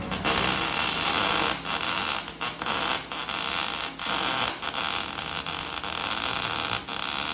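Electric arc welding: a steady, loud crackling hiss of the arc as a beginner lays a tack weld joining two pieces of metal, with several brief breaks where the arc falters.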